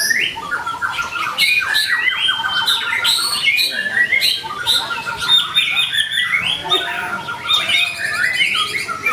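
White-rumped shama (murai batu) in full song: a continuous, varied run of whistled phrases, fast trills and rapid chattering notes, one phrase straight after another.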